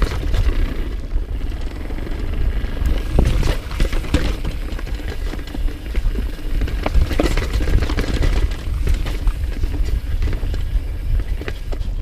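Mountain bike descending a dirt and rock trail: wind rumbling over the action-camera microphone, tyres on dirt, and frequent rattles and knocks as the bike clatters over rocks and roots.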